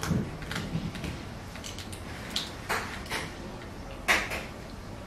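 Tableware and food being handled during a seafood boil meal: several short clicks and clatters, the loudest about four seconds in.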